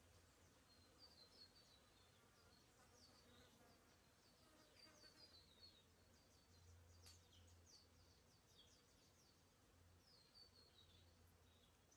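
Faint forest birdsong: many short, high chirps in quick runs throughout, with a low insect buzz coming and going.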